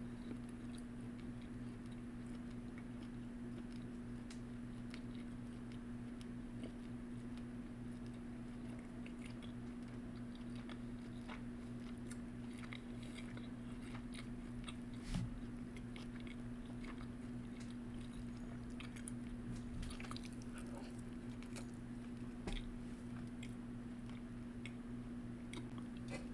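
A person chewing and biting food up close, with small mouth clicks and crunches scattered throughout and a couple of soft knocks, over a steady low hum.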